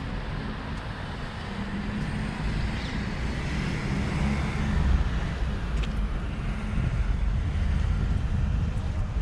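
Road traffic: a motor vehicle's low engine rumble, swelling to its loudest about halfway through.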